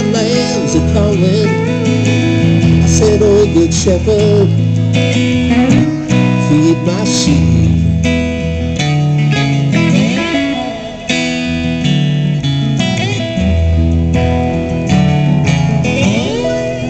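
Live band music led by electric guitars, with rising slide-guitar glides about ten seconds in and again near the end.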